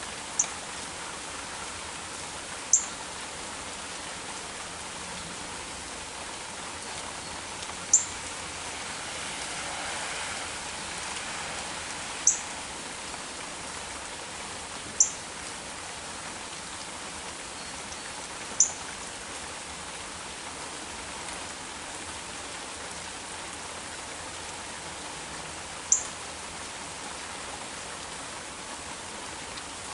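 Steady heavy rain falling, swelling slightly about ten seconds in. Seven short, sharp, high-pitched chirps stand out above it at irregular intervals.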